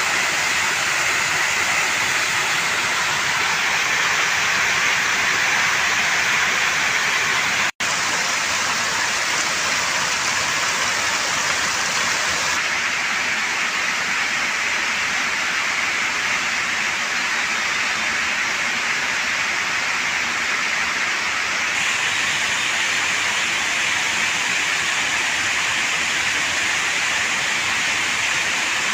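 Water pouring down a three-tiered waterfall: a steady, loud rushing of falling and splashing water. It breaks off for an instant about eight seconds in.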